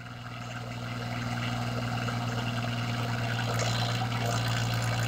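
Swaraj 855 and New Holland 6500 diesel tractor engines running hard under the load of a tug-of-war pull, a steady low drone that slowly grows louder.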